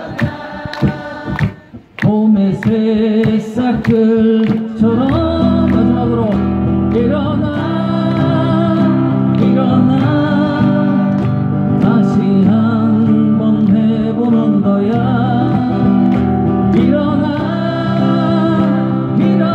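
Live song with acoustic guitar and a solo vocal line. Strummed chords open it, then long held notes follow. A fuller, deeper accompaniment comes in about five seconds in and carries on steadily.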